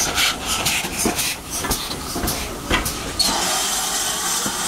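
Steam tank locomotive 4277 'Hercules', a GWR 2-8-0T, moving slowly past at close range: a run of irregular sharp knocks and clanks from the engine and its running gear. About three seconds in, a steady steam hiss takes over.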